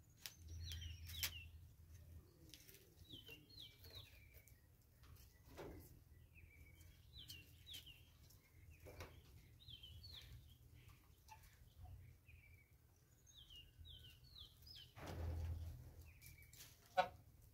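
Faint chirping of a small bird: short, falling high notes repeated every second or two, with a brief burst of noise about fifteen seconds in.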